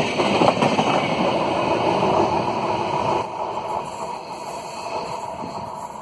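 Tail end of a passenger train rolling past on the rails, a steady wheel-and-rail rumble. About three seconds in it drops suddenly, leaving a fainter rushing noise as the train draws away.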